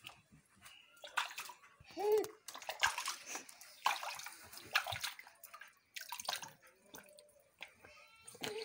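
Water splashing, sloshing and dripping in a plastic bucket as a baby is bathed in it, hands scooping water over him in irregular splashes. A brief vocal sound from the baby about two seconds in.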